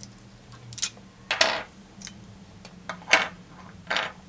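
Hard plastic GoPro mounts and extender bars clicking and clacking as they are handled and set down on a table: a handful of sharp knocks, the loudest about a second and a half in and just after three seconds.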